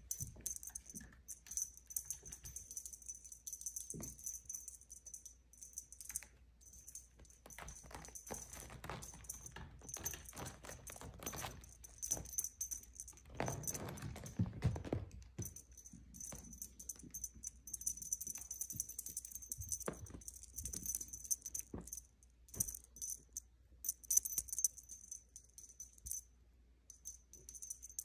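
Pixiebob kittens scrabbling and clawing over an upholstered chair: scattered scratches, clicks and soft bumps of claws on fabric and wood, with a heavier rustle about fourteen seconds in. A light, high jingling runs through most of it, breaking off now and then.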